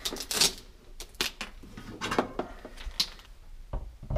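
Scattered light clicks, knocks and rustles of handling as a refrigerator's power cord is picked up and carried to a wall outlet, with its plug pushed into the socket near the end.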